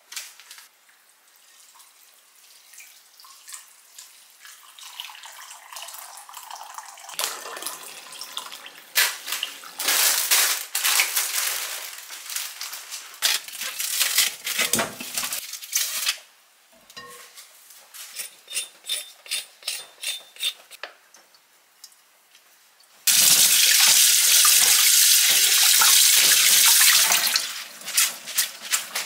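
Kitchen tap water running into a stainless steel sink as vegetables are rinsed, with small handling clicks and splashes in between. The tap runs loud and steady for about four seconds near the end.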